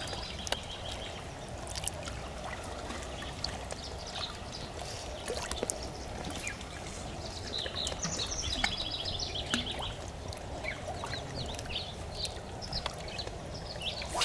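Outdoor ambience of river water trickling and lapping along the shore, steady throughout. Birds sing short runs of repeated high chirping notes now and then, most busily in the second half.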